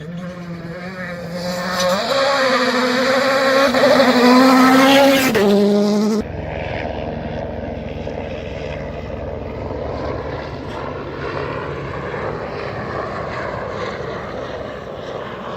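Rally car engine revving hard, its pitch climbing in steps through gear changes and loudest about four to five seconds in. About six seconds in the sound cuts abruptly to a steadier, lower engine note, which stops suddenly at the end.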